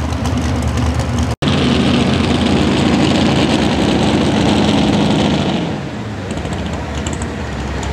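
A competition pulling vehicle's engine running hard under load. The sound cuts out for an instant about a second and a half in. Near six seconds in it falls back to a quieter, steady running.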